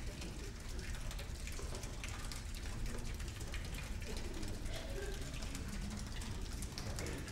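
Steady hiss and low hum of an old videotape recording, with faint, indistinct voices about five seconds in.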